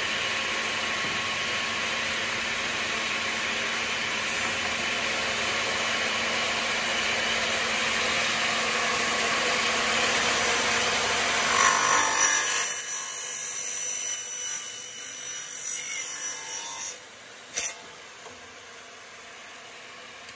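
elumatec MGS 72 mitre saw running free with a steady high whine, then cutting through an aluminium profile, its sound rougher and uneven for about five seconds. The saw then cuts off suddenly, followed by a sharp click and a faint steady hum.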